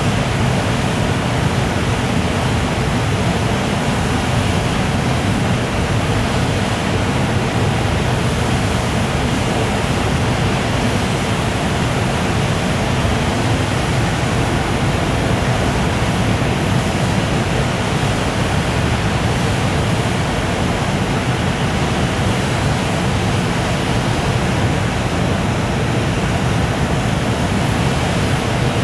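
Container freight train hauled by an EF510 electric locomotive rolling past, a steady rushing noise of wheels on rails.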